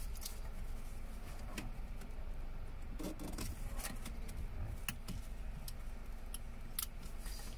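Scattered light clicks, ticks and small scrapes of tools and hard parts being handled, irregular, over a steady low hum.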